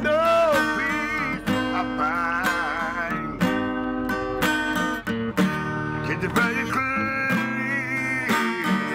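Acoustic guitar strummed with a regular beat, with a voice singing a few drawn-out, wavering phrases over it.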